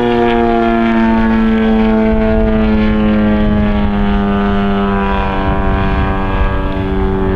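Desert Aircraft DA-50 gasoline two-stroke engine of a radio-controlled Yak-54 aerobatic plane running hard through a Zimmerman exhaust, its pitch sagging slowly, then dropping quickly near the end.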